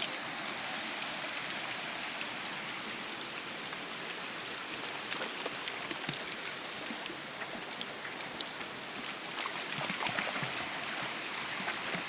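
Shallow stream running over rocks, a steady rush of water, with a few light splashes near the end as dogs wade through it.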